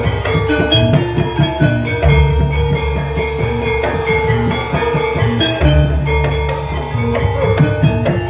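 Javanese gamelan music: ringing struck metal keys playing a fast pattern over hand-drum beats, with deep sustained low tones sounding at intervals.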